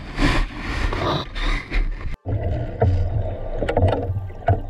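Water splashing and sloshing around a camera held at the surface of a river, in several surges. About two seconds in it cuts off sharply, then comes muffled underwater sound with bubbling, a low rumble and a few sharp knocks.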